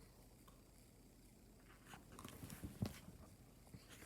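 Near silence: room tone with a few faint clicks and rustles about two to three seconds in.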